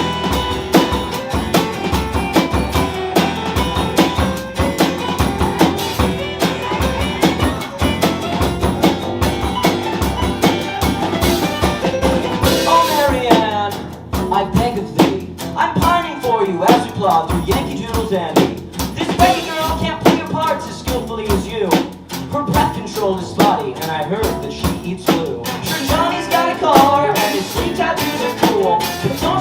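Live rock band playing an instrumental passage: a drum kit keeping a steady beat, with bass and guitars over it and guitar lines bending in pitch in the second half.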